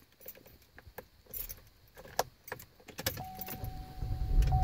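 Keys jangling and clicking in the ignition of a 2016 Chevy Impala. The key is turned about three seconds in: a steady whine comes in, then the engine cranks and catches near the end on a cold start.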